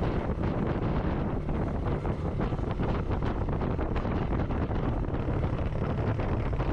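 Wind buffeting the microphone: a steady, dense rumble with fast, uneven flutter.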